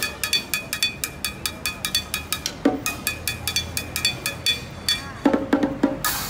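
Fast drumming with sticks on an improvised kit of pots, pans, lids and plastic buckets: a steady run of ringing metallic strikes, about six a second, with a deeper hit about two and a half seconds in and a quick flurry of deeper hits near the end.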